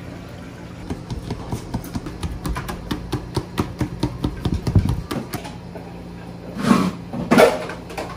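Uchiwa hand fan flapped quickly over freshly mixed sushi rice in a wooden tub to cool it, about three to four strokes a second, over a steady kitchen hum. Near the end come two louder knocks.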